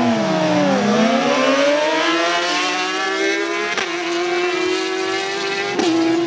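Two superbike inline-four engines, a BMW S1000RR and a Suzuki GSX-R1000, accelerating hard in a drag race. Their note climbs steadily in pitch as they pull through the gears, dropping once early on and again abruptly near the end as they shift up.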